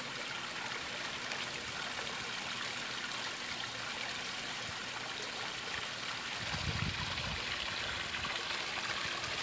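Water trickling and splashing steadily out of the two bendy-straw jets at the bottom of a hanging 2-liter bottle onto grass, the jet reaction that makes the bottle spin. A brief low rumble comes about two-thirds of the way in.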